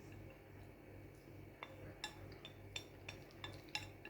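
Cutlery clinking and scraping against a dish while eating noodles: about eight faint, light clinks, more frequent in the second half.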